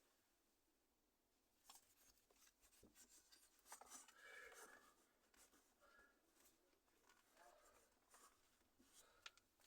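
Faint rustling and rubbing with a few light clicks as an adhesive plastic sun visor strip is handled and worked in a car interior, a little louder about halfway through.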